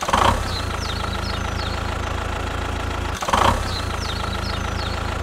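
Steady motor running from a mini DIY model bulldozer/tractor, a low even hum. A short louder burst comes at the start and again about three seconds in. Faint short high chirps sound over it.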